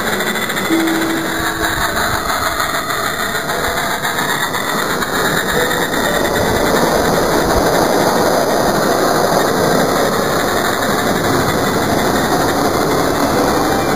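Small live-steam garden-railway locomotive running, a steady mechanical hiss and rumble that gets a little louder about six seconds in.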